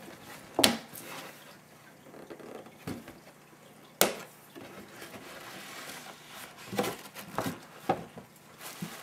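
Cardboard gift box being opened by hand, with a sharp snap about four seconds in and then tissue paper rustling.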